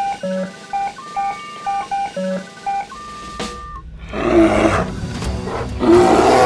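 A fast repeating pattern of short electronic computer-like beeps at several pitches ends in a brief sweep, followed by deep animal roars over a low rumble, coming in two loud surges, the second the loudest.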